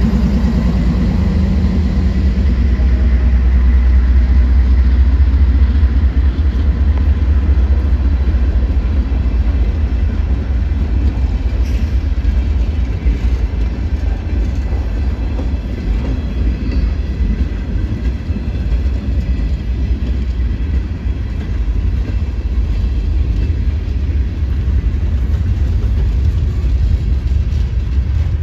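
Norfolk Southern freight train's tank cars, covered hoppers and a boxcar rolling past close by: a loud, steady low rumble of steel wheels on rail. The trailing diesel locomotive's engine fades out over the first few seconds.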